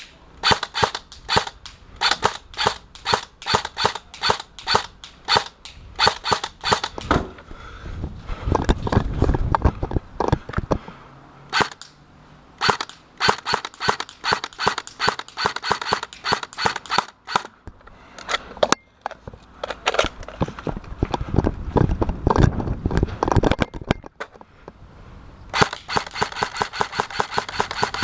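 E&C MK18 airsoft electric gun (AEG) firing strings of quick single shots, a few a second, with two pauses between the strings.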